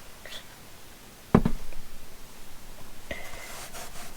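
One solid thump about a second in, then a lighter knock near the end, with faint handling noise in between: parts of a string trimmer kit being picked up and set down.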